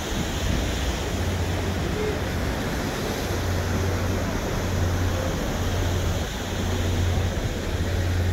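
Harbour ambience: a steady low drone that swells and dips, under a wash of wind noise on the microphone and water.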